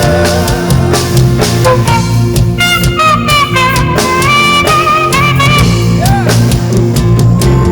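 Saxophone playing a gospel worship melody over a live band with drum kit and bass; about two and a half seconds in it climbs into a high line with bending, sliding notes for a few seconds.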